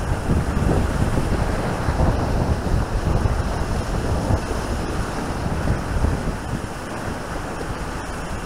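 Wind buffeting the microphone over the wash of River Mersey waves at a very high tide, a steady rough rush that swells and dips.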